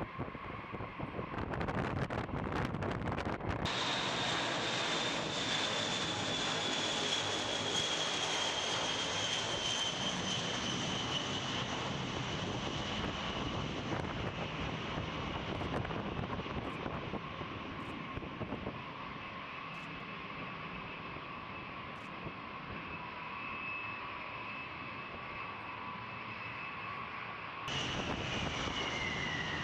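B-52H Stratofortress turbofan jet engines running, a steady roar with a high whine that slides slowly down in pitch. Near the end the sound changes abruptly to another engine whine that falls faster.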